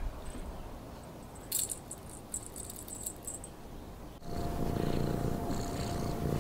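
Light jingling rattles for about two seconds. Then, about four seconds in, a cat purring, louder and close by.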